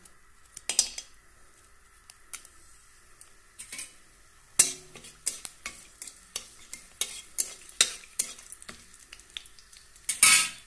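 Bay leaves and cinnamon sticks spluttering in hot mustard oil in a kadai: a run of sharp crackling pops, loudest about halfway through, with another burst near the end.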